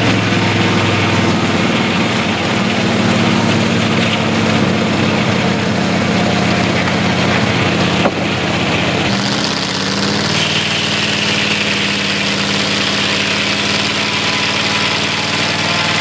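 Homemade circular sawmill at work: a steady engine drone under the hiss of the saw blade cutting a board off the log on the carriage. There is a sharp knock about eight seconds in, and about a second later the engine's pitch dips and climbs back.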